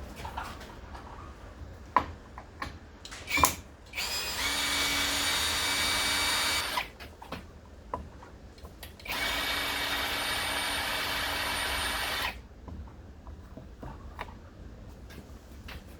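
Electric drill-driver running twice, each time for about three seconds, backing out screws. A few sharp knocks of handling come before the first run.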